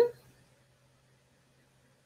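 A woman's voice trailing off at the very start, then near silence: room tone with a faint steady low hum.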